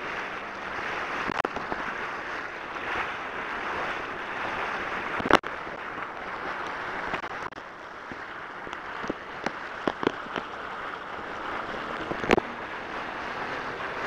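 Water rushing and hissing past a towed tube skimming the lake, with wind buffeting the microphone. A few sharp knocks or slaps break in as the tube bounces on the water, the loudest about five seconds in and again near the end.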